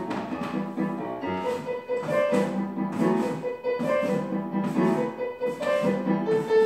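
Piano music accompanying a ballet barre exercise, playing in a steady rhythm.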